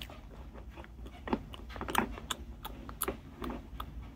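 Chewing of a crunchy cracker: a run of short, irregular crisp crunches and clicks.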